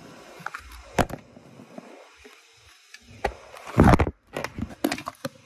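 Handling noise from the recording device being picked up and moved: scattered knocks and clicks, with the loudest knocks about a second in and a louder cluster about four seconds in.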